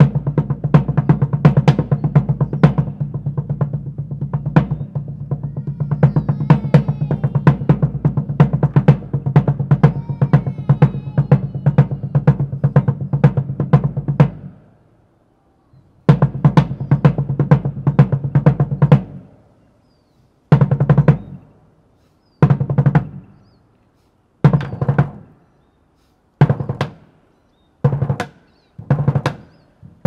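Drums played in a fast, continuous roll with a deep pitched body. It breaks off about halfway through, resumes briefly, then turns into short rolls about every two seconds, each one dying away.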